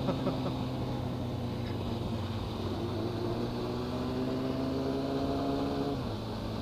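Motorcycle engine under way, holding a steady note that slowly rises, then drops suddenly about six seconds in.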